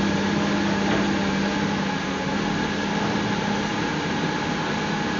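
Hydraulic excavator's diesel engine running steadily, a constant drone with a steady hum.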